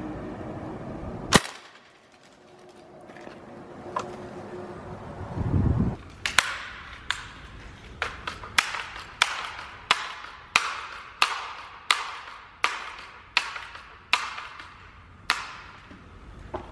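A single sharp crack about a second in, then a Daisy PowerLine 880 multi-pump air rifle being pumped up: its pump lever clacks in a steady run of strokes, about one every two-thirds of a second, charging the rifle for the next shot.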